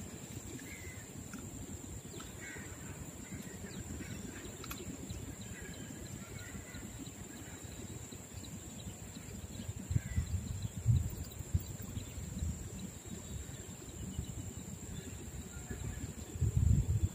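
Outdoor riverside ambience: a fluctuating low rumble that swells briefly about ten seconds in and again near the end, with faint short bird calls and a steady faint high-pitched whine.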